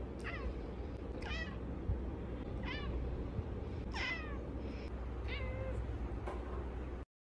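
A domestic cat gives a string of five short, high-pitched meows, each sliding steeply down in pitch, spaced about a second apart.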